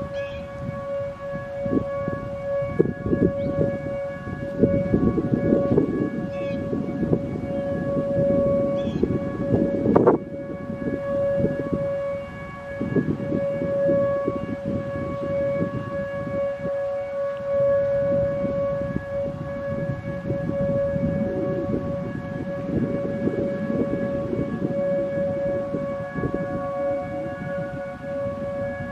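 Federal Signal Modulator 4016 outdoor warning siren sounding a steady dual-tone Alert, held at one pitch without rising or falling, during its weekly test. A single sharp knock comes about ten seconds in.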